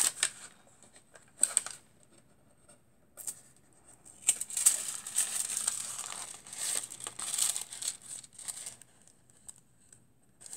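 Thin silver foil-transfer sheet and tracing paper crinkling and rustling as the foil is peeled off black cardstock and handled: a few short rustles in the first few seconds, then nearly continuous crinkling from about four seconds in until shortly before the end.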